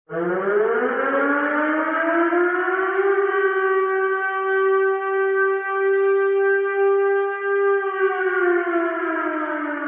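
Civil defence siren wail: it starts suddenly, winds up in pitch over about three seconds, holds a steady tone, then begins to wind down near the end.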